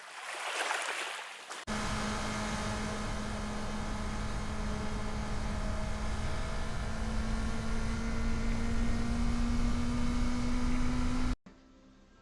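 A short rush of hiss, then a motorcycle engine running steadily under way with road noise, its pitch creeping slowly upward. It cuts off abruptly near the end, leaving faint music.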